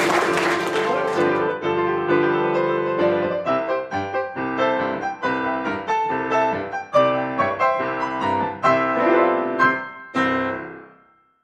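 Applause dying away in the first second, under solo piano music. The piano plays a lively run of separate notes and chords, ending on a final chord about ten seconds in that rings out and fades.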